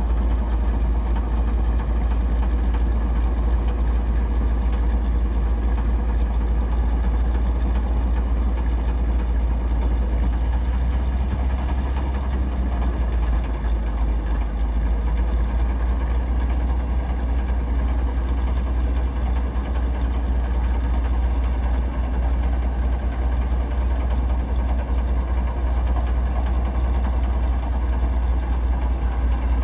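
1968 Chevrolet C50 truck engine idling steadily with a deep, even rumble while the hydraulic hoist tips the grain box up and lets it back down.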